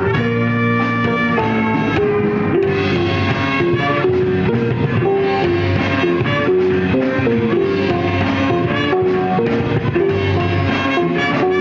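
Live band playing an instrumental funk-jazz tune, with a drum kit keeping the beat under a melody line and guitar.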